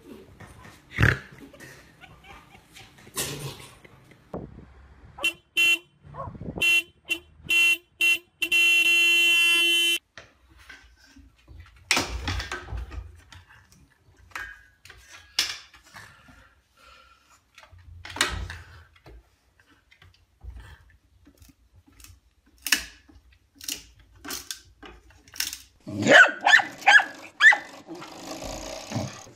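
Dogs playing indoors, with scattered knocks and short dog noises. Midway there is a steady horn-like tone in short repeated blasts, then one held for about a second and a half. Dog barking and growling starts near the end.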